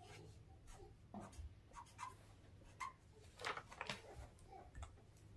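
Faint squeaks and scratches of a felt-tip marker writing on paper, with a few louder rustles about three and a half seconds in as the sheet is moved.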